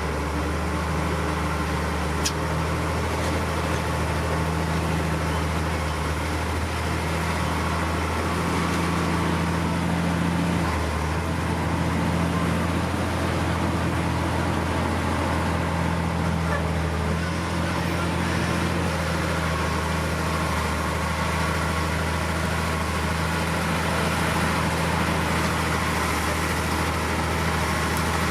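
Heavy diesel engine of earthmoving equipment running steadily at low revs, a constant low drone, with one brief sharp click about two seconds in.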